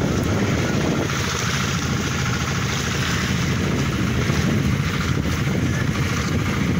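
Fishing boat's engine running with a steady, unbroken drone.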